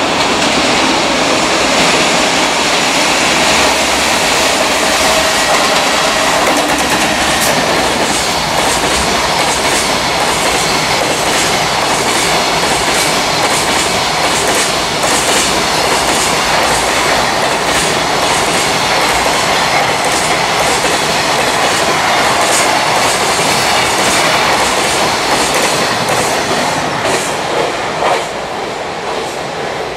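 Container freight train hauled by an electric locomotive passing close by, its wagon wheels clattering over the rail joints in a steady run of clacks. The sound dies away near the end as the last wagon goes by.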